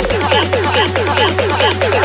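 Electronic dance music with a steady bass note and a rapid, evenly repeating figure of short falling synth notes. The bass steps up in pitch just after the start, and the synth figure quickens near the end.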